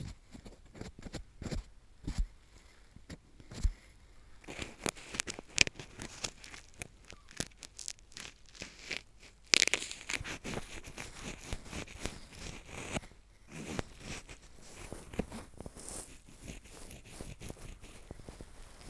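Spiral drill-screw ear pick scraping in an ear: irregular crackling and scratching made of many small clicks, busiest from about five to thirteen seconds in.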